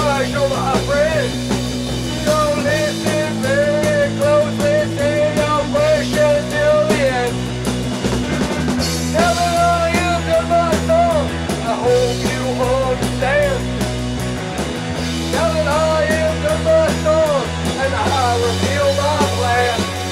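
Rock band music with electric guitar and bass: a wavering lead melody over steady, held bass notes, playing without a break.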